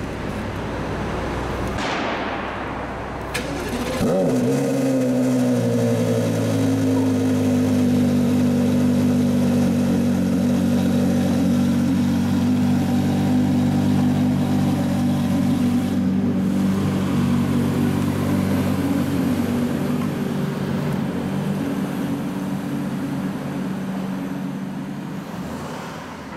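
Porsche Carrera GT's 5.7-litre V10 cold-starting: it fires about four seconds in, then runs at a high cold idle whose pitch eases down over the first few seconds before holding steady. It grows somewhat quieter near the end.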